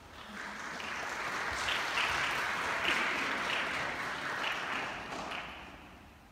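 Audience applause, building over the first couple of seconds and dying away near the end.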